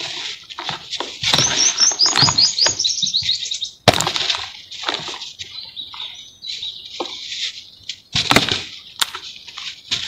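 Hands crushing and crumbling dry lumps of sand-and-cement mix in a bowl: gritty crunching and crackling with powder sifting down, in irregular bursts. A bird twitters rapidly in the background between about one and three seconds in.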